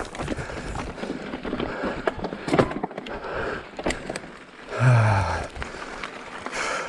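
Mountain bike rolling over a rough trail: steady tyre and dirt noise with a couple of sharp knocks and clatter from the bike. A rider gives a short voiced sound that falls in pitch about two-thirds of the way through.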